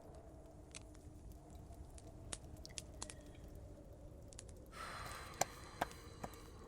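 Newly lit fireplace fire crackling: a steady low rumble with scattered sharp pops, the loudest few coming near the end. A short hissing rush sets in about five seconds in.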